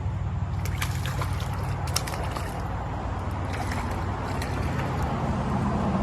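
Running creek water with a series of short, sharp splashes in the first half and a few more around the middle, from a hooked rainbow trout thrashing at the surface. A steady low rumble runs underneath.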